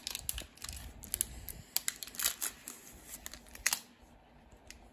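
Foil Pokémon booster pack wrapper being torn open and crinkled: a run of sharp, irregular crackles that dies away about four seconds in.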